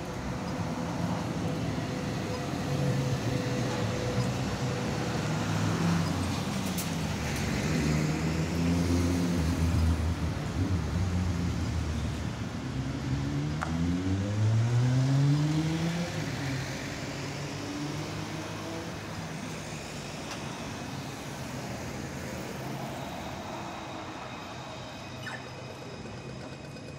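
Street traffic: cars and a ute drive through the intersection, with one engine's pitch rising steadily as it accelerates about halfway through; the traffic noise then fades.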